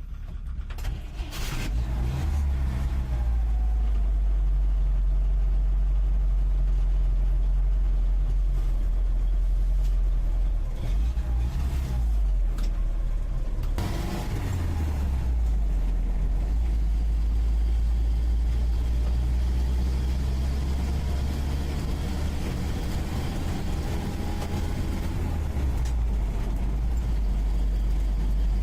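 UAZ 469B's four-cylinder petrol engine running under way, heard from the passenger seat inside the cab as a strong, steady low drone. Its note dips about 11 seconds in, and about 14 seconds in a sharp clunk comes as the engine's pitch changes, as with a gear change.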